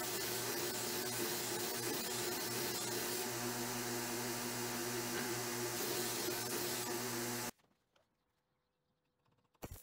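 Bench belt sander running steadily while a steel block is pressed against the abrasive belt to round off its corners. The sound cuts off abruptly about seven and a half seconds in, leaving near silence.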